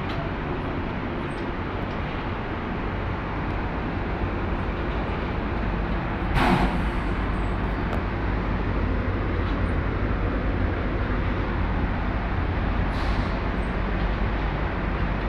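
Powder-coating booth's air extraction running with a steady rushing noise and low rumble. A sharp burst of hissing air cuts in about six and a half seconds in, with a fainter short hiss near the end.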